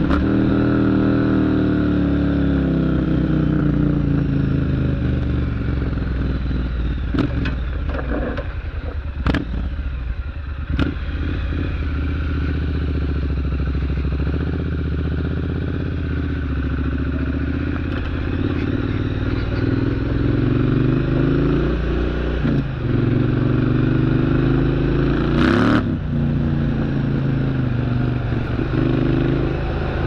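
Triumph Street Scrambler's 900 cc parallel-twin running through an aftermarket exhaust, revving up and down as the bike accelerates and shifts gears, with the pitch climbing and dropping several times. A few sharp cracks come through the middle, and a short loud burst of noise comes near the end.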